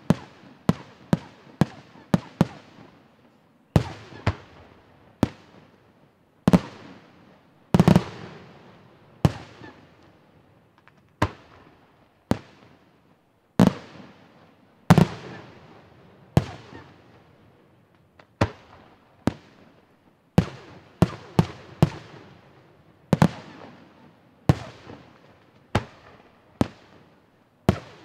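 Aerial firework shells bursting in a rapid, irregular run of sharp bangs, about one or two a second with some quick clusters, each bang trailing off in a short echo.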